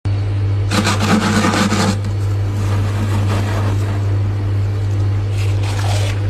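Freezer frost being scraped, a loud rough scrape about a second in and a softer one near the end, over a steady low hum.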